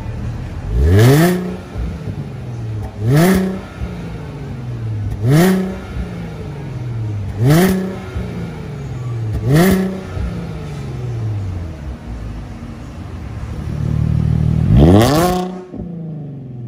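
Porsche Panamera S engine revved while parked, through a valve-controlled exhaust with quad tips. Five quick blips, about two seconds apart, each fall slowly back toward idle. Near the end comes a longer rev that builds to a higher peak.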